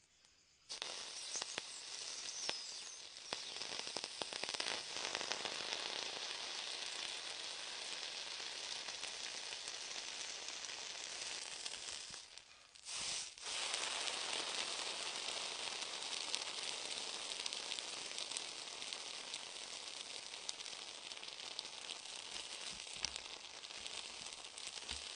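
Red-hot metal ball pressed into a burger, sizzling and crackling as it sears the bun, patty and toppings. The sizzle starts suddenly about a second in, drops out briefly about halfway through, then carries on.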